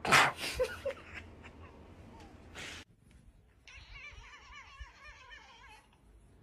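A person laughing hard for nearly three seconds, cut off suddenly. After a short gap a quieter warbling, wavering sound follows for about two seconds.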